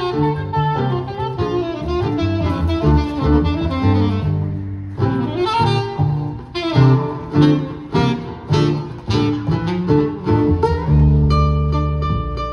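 Live jazz played by an acoustic guitar, saxophone and double bass. The middle holds a quick run of plucked guitar notes; near the end a long low bass note sustains under repeated plucked notes.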